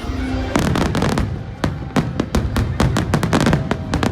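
Fireworks display in full barrage: a rapid run of sharp bangs and cracks, several a second, over a continuous low rumble. The barrage begins about half a second in.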